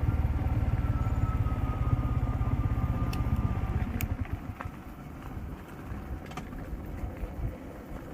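A motor vehicle's engine running with a steady low rumble while on the move. About four seconds in it drops away to a much quieter rumble, with a couple of short clicks.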